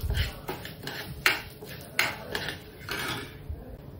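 Metal spoon stirring urad dal and black peppercorns in a dry metal pan, scraping in short strokes about twice a second. The stirring stops about three seconds in.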